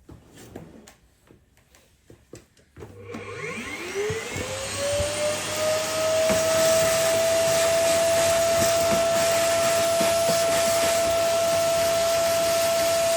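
A few light clicks and knocks, then an electric motor switches on about three seconds in, its whine rising quickly in pitch and settling into a steady high running tone with a loud rushing hiss.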